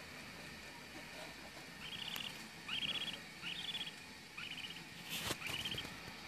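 Budgerigar giving a series of short chirps, about one a second, starting about two seconds in. A brief click sounds a little after five seconds.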